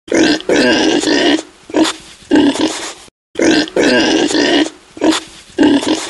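Pig calls: one long call followed by two short ones. The same three-second run is played twice.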